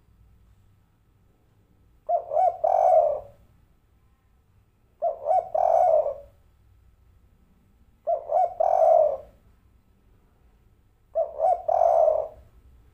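Caged spotted dove (tekukur) cooing, a 'kuk 3' type: four calls about three seconds apart, each a few quick notes running into a longer coo.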